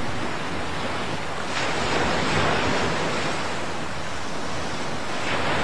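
A rushing, surf-like noise that swells about one and a half seconds in and again near the end.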